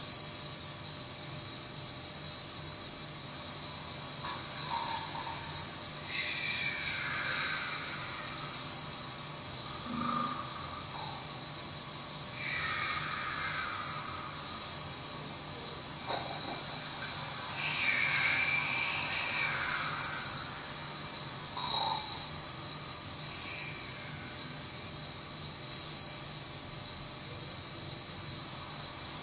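Crickets chirping in a steady, continuous fast trill, with a higher-pitched insect buzz that starts and stops every couple of seconds.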